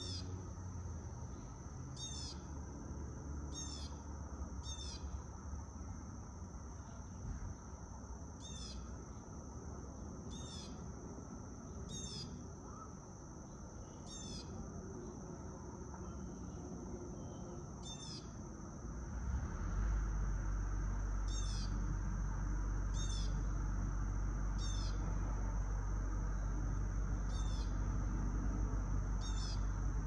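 A steady, high insect drone with a bird's short chirp repeated every one to two seconds over it. Under them runs a low rumble of wind and distant traffic, which gets markedly louder about two-thirds of the way through.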